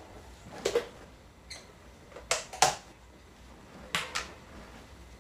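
A handful of sharp clicks and knocks, some in close pairs, from an ice cream tub being handled and its lid worked open.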